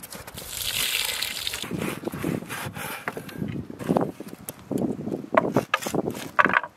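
Knife cutting bone-in veal on a wooden cutting board, with a few sharp knocks of the blade on the board in the second half. A brief hiss about a second in.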